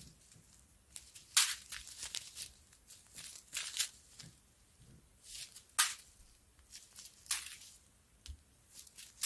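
Small plastic bags of diamond-painting drills crinkling as they are handled, in a series of short rustles with quiet gaps between.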